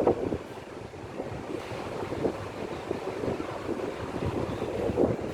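Strong wind buffeting the microphone in irregular gusts, with a loud gust at the start and another near the end.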